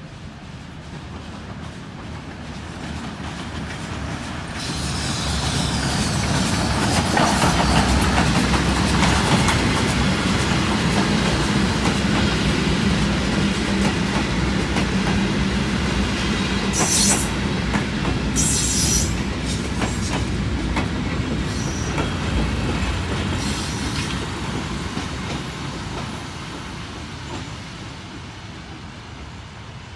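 A train approaching and passing, growing louder over the first several seconds and fading away near the end, with steady wheel-on-rail noise and two brief high squeals a little past the middle.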